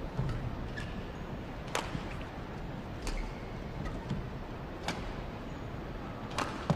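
Badminton rackets striking a shuttlecock in a rally: sharp hits about every one and a half seconds, four of them clearly, over the steady hush of an indoor arena.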